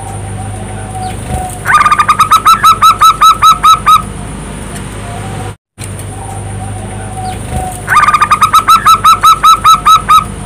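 Zebra dove (perkutut) song: a soft low note leads into a fast run of about fifteen staccato coos lasting about two seconds, and the same phrase comes again about six seconds later, identical, as in a looped lure recording. A steady low hum runs underneath.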